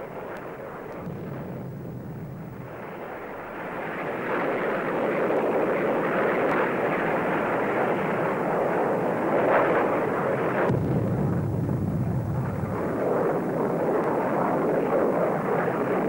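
A loud, steady rumbling roar of air-combat noise, of the kind laid over gun-camera film. It swells about four seconds in and turns deeper at about eleven seconds, with no separate distinct shots.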